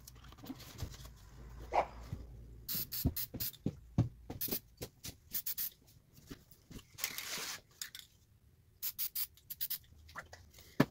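Aerosol spray-paint can hissing in a series of short bursts, with a longer spray about seven seconds in, as paint is sprayed past a hand-held paper mask. Light knocks from handling come in between.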